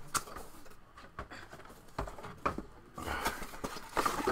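Small cardboard mystery box being handled and shaken, with a few light knocks and rustles that get busier near the end.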